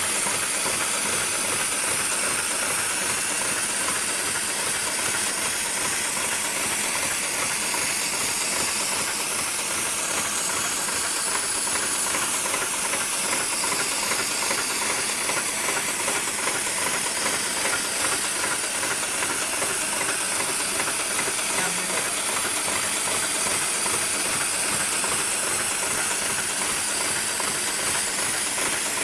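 GLK911 programmable heavy-duty sewing machine running steadily, a dense, fast mechanical clatter under a constant hiss.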